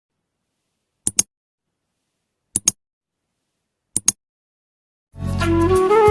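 Three sharp double clicks about a second and a half apart, then about five seconds in a phone ringtone's music starts: a held melody over a steady low bass.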